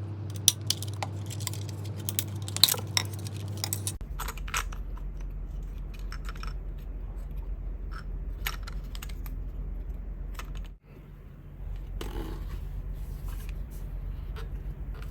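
Small sharp clicks, taps and scrapes of plastic and metal parts being handled with hand tools while an old Sony pocket radio is dismantled, over a steady low hum. The clicks are densest in the first few seconds.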